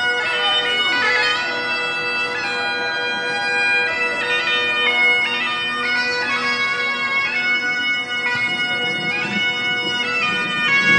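Bagpipes playing a tune: a steady drone held underneath while the chanter melody steps from note to note.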